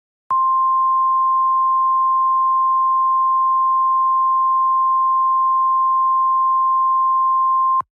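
Emergency Alert System attention tone of the single-tone NOAA Weather Radio kind (1050 Hz). It is one loud, steady, unbroken beep lasting about seven and a half seconds and starts and stops abruptly. It signals that an emergency broadcast message follows.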